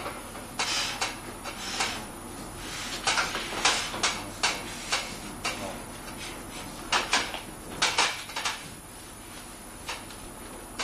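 Irregular sharp knocks and clatter in a large hall, some of them fairly loud, mixed with brief calls from people.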